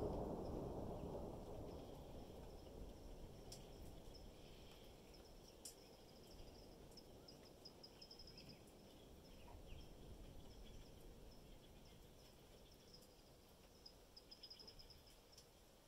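Distant thunder rumbling and fading away over the first few seconds, leaving a near-silent forest with faint, rapid high chirping and a few scattered ticks.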